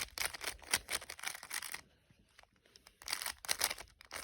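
A plastic Rubik's cube being turned fast, its layers clicking and clattering in quick runs, with a pause of about a second in the middle before another run of turns. This is a last-layer algorithm being carried out near the end of a solve.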